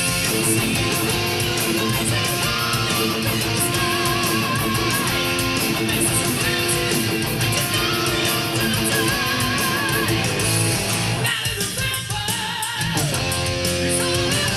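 Electric guitar with a DiMarzio DP100 Super Distortion humbucker playing heavy-metal riffs and held vibrato notes over a full band. About twelve seconds in, the low end drops out briefly, leaving a single wavering held note that slides down before the riffing comes back in.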